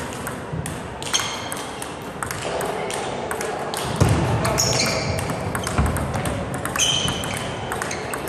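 Table tennis rally: sharp clicks of the ball off the bats and the table, several with a short ringing ping, at an uneven rhythm, with a couple of low thuds near the middle.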